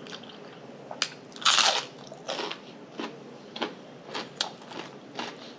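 A person eating close to the microphone: a loud crunchy bite about a second and a half in, followed by chewing with short, regular mouth clicks about twice a second.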